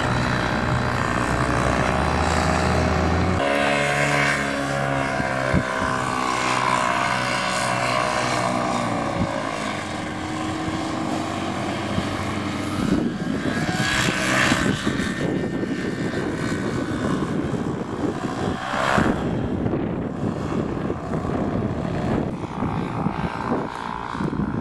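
Paramotor engine and propeller running with a steady tone, shifting in pitch about three and a half seconds in. After about ten seconds the engine tone gives way to a gusty rushing noise of wind on the microphone.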